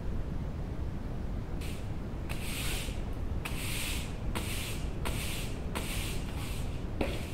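Bristle broom sweeping a terrazzo floor: a run of short, swishing strokes about one every half to three-quarters of a second, starting about a second and a half in, over a steady low rumble.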